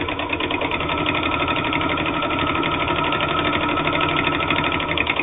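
A Janome-made New Home manual zigzag sewing machine with metal gears running at a steady speed, stitching through eight layers of heavy denim. It keeps a fast, even stitching rhythm with no slowing or strain.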